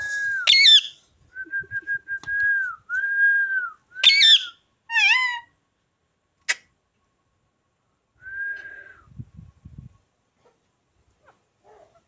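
Pet ring-necked parakeet calling: a run of steady, level whistles on one pitch, broken by a few short harsh screeches that jump sharply up and down in pitch, then a single sharp click and one last whistle.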